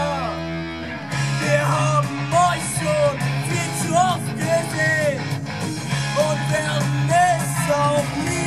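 Rock music with guitar chords and a singing voice carrying an arching melody line.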